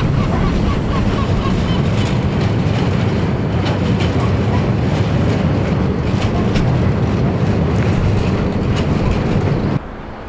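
Porto Metro light-rail train crossing the steel deck of the Dom Luís I bridge: a loud, steady rumble with scattered clicks and clatter from the wheels on the rails. The sound cuts off suddenly near the end.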